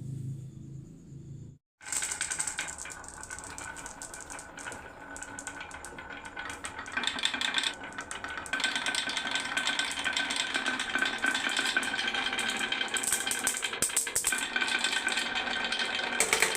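Marbles rolling and clattering down a wooden marble run in a dense, steady rattle of clicks, louder from about halfway through. A low hum comes before it, ending in a brief break about two seconds in.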